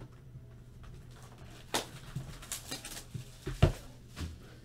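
Boxes of trading cards being handled on a table: scattered rustles and clicks, with a thump about three and a half seconds in.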